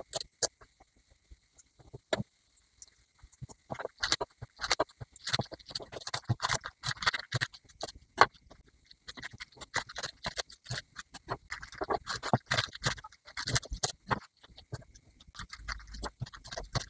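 Kitchen knife chopping fresh spinach leaves on a wooden cutting board: irregular quick taps of the blade cutting through the leaves onto the wood. The taps are sparse for a couple of seconds about half a second in, then come thick and fast.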